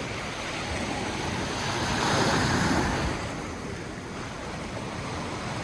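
Sea waves breaking on the shore with wind buffeting the microphone; a wave swells up and washes in about two seconds in.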